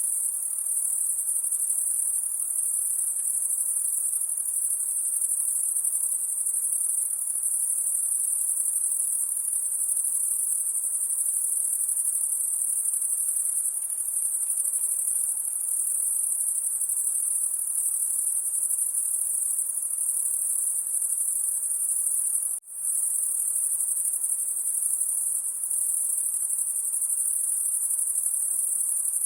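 Night insects giving a continuous, high-pitched, shrill chorus, steady in level, that cuts out for an instant about two-thirds of the way through.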